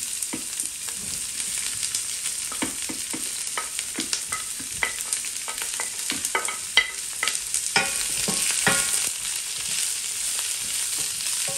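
Vegetables sizzling in hot oil in a nonstick wok. Through the middle come many quick clatters and taps as chopped bell peppers are scraped off a plate into the pan with a wooden spatula and stirred in, the sharpest about seven seconds in.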